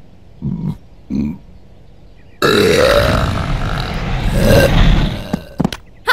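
Cartoon sound effects: two short grunts from an animated ostrich, then a loud rushing noise starting suddenly about two and a half seconds in and lasting about three seconds, as the ostrich flies through the sky.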